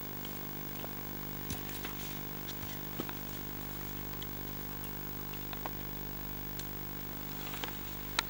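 A steady low mechanical hum at an even pitch, with scattered faint clicks and one sharper click near the end.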